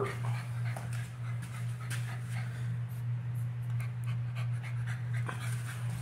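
Bulldog puppy panting with its tongue out, in a steady rhythm of quick breaths, over a steady low hum.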